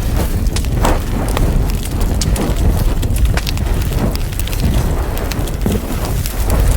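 Wood fire burning in a fireplace, crackling with frequent sharp snaps and pops over a steady low rumble of flames.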